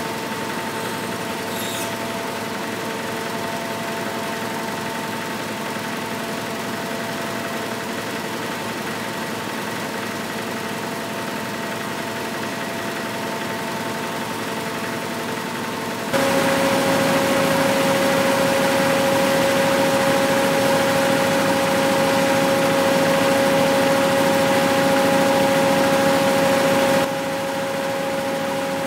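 Small engine driving an abaca twin-spindle decorticating machine, running steadily while the spinning spindles strip fibre from the stalks. About sixteen seconds in the running note abruptly becomes louder and a little higher, then the level drops again near the end.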